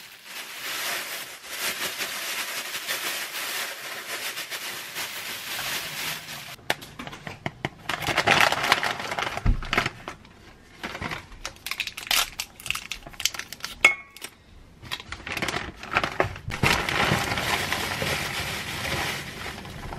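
Kitchen handling sounds: a steady rushing hiss for the first six seconds, then scattered clicks and knocks as a broth-coin packet is handled, and near the end a zip-top plastic bag of frozen noodles crinkling and crackling as it is squeezed.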